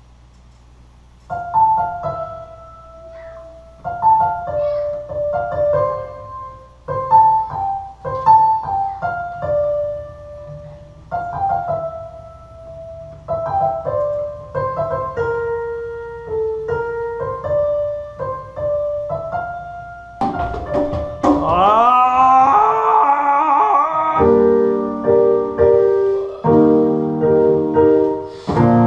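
Keyboard playing a single-note melody in short phrases, then a sliding sweep of pitches, then evenly repeated chords.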